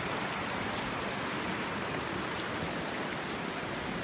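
Steady rushing of a mountain river flowing over a gravel and cobble bed.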